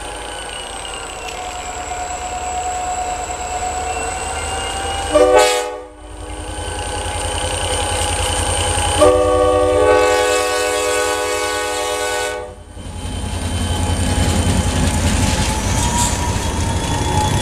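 Vermont Rail GP40-2 diesel locomotive #307 blowing its multi-note air horn on the approach to a road crossing: a held chord at first, a short blast about five seconds in, then a long blast of about three seconds. From about thirteen seconds the locomotive's 16-cylinder EMD diesel engine and its wheels pass close by, loud and low.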